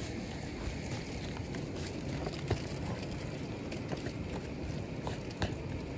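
Steady background hiss with a few faint clicks as a plastic spoon mashes and scrapes shredded fish in a small tub.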